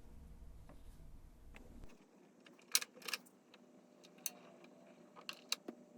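Sharp clicks and light knocks of a vinyl record and turntable being handled and set up: a cluster of clicks about three seconds in, one about four seconds in, and two more near the end.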